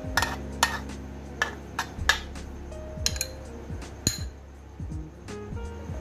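A metal spoon clinking and scraping against a glass bowl and a metal muffin tin in irregular sharp taps, loudest in the first two seconds, over background music.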